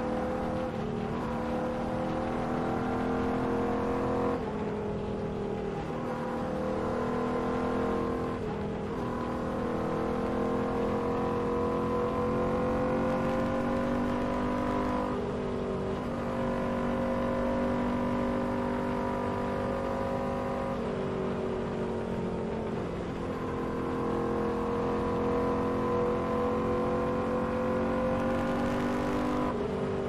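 Royal Enfield Continental GT 650's parallel-twin engine running at road speed. Its note dips sharply and climbs again several times, about every four to six seconds.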